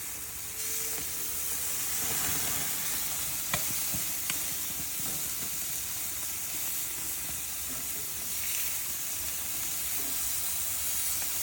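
Cornish hens sizzling steadily on a hot grill, just flipped, with two short sharp clicks in the middle.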